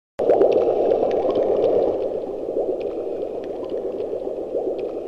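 Muffled bubbling, gurgling water with scattered small ticks, easing slightly after about two seconds.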